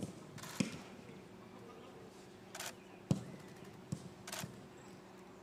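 Football training on a grass pitch: four scattered sharp thumps, like balls being struck, with three short swishes between them. A steady low hum runs underneath.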